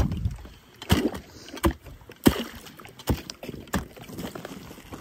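An ice spud bar chopping into river ice at a trap hole: about six sharp strikes, one every half second to a second, with slushy water noise between them. The strikes stop near the end.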